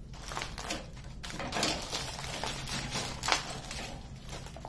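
The clear plastic film covering a diamond painting canvas crinkling and crackling as the canvas is handled and pressed flat by hand, with one sharper crackle about three seconds in.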